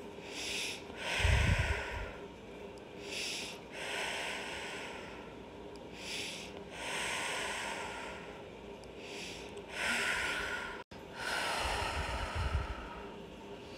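A woman breathing slowly and audibly, about four even in-and-out cycles, as she rests face down and comes back to natural breathing after back-bend holds. A low puff sounds about a second in and again near the end.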